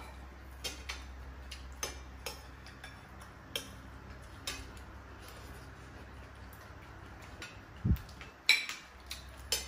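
Spoon and fork clinking against ceramic plates in scattered light clicks during a meal, with a dull thump about eight seconds in.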